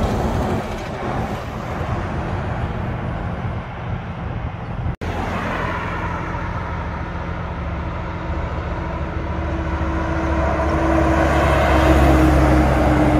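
Heavy two-trailer trucks passing close on a highway. A refrigerated truck rolls past with its tyre and engine noise fading, and after a cut a second truck's diesel engine drone grows louder as it approaches and passes, loudest near the end.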